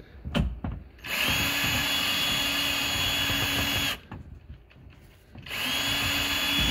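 Cordless drill with a socket adapter backing out hand-loosened bolts from the car's underbody aero shield: a short knock, then two steady runs of the drill's whine, the first about three seconds long, the second starting near the end.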